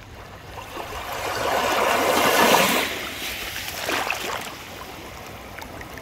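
Small sea waves washing onto the shore: a rush of water that builds from about a second in and peaks near the middle, then a smaller wash shortly after.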